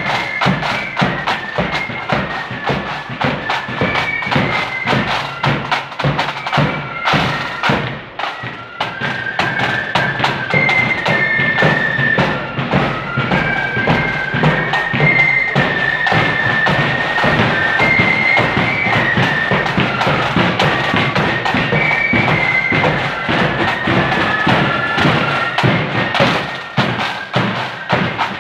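A marching flute band playing a tune: the flutes carry a high melody over a steady beat of side drums and bass drum.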